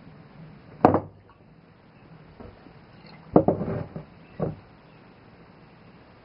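Body working on a wooden back-roller: a sharp crack about a second in, then a short cluster of knocks and shuffling around three and a half seconds in, and one more knock a second later.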